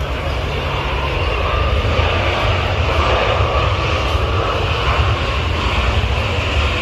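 Jet airliner passing close by, its engine noise loud, building over the first couple of seconds and then holding steady.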